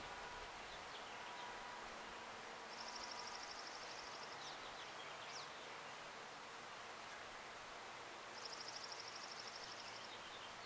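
A songbird singing a fast, even, high trill twice, each trill about a second and a half long, with a few faint thin high chips in between, over a soft outdoor hiss.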